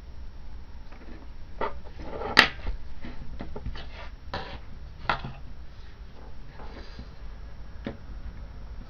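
Irregular clicks, taps and short scrapes of small camera parts being handled and pried apart during a teardown, with one sharp knock a little over two seconds in and another about five seconds in.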